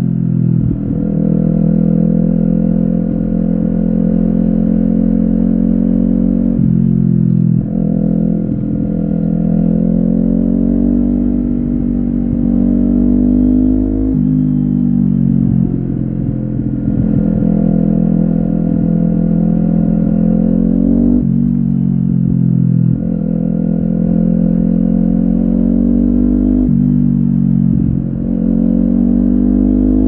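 Kawasaki Ninja 400's parallel-twin engine through an Akrapovic carbon slip-on exhaust with no dB killer, pulling hard: the exhaust note rises steadily in pitch and drops sharply about every seven seconds, as at each gear change.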